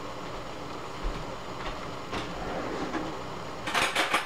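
Water boiling hard in a lidded stainless steel pot of broccoli, a steady bubbling hiss, with a quick rattle of clicks near the end.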